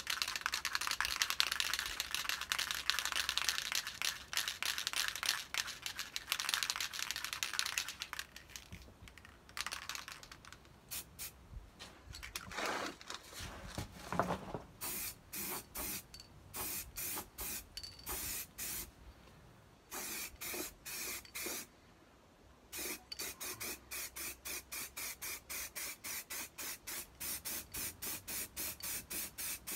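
Aerosol can of primer spraying onto a car's bare repaired bodywork in short bursts of hiss. The bursts come as a fast run of about three a second near the end. Before that, several seconds of steady scratchy rubbing on the panel.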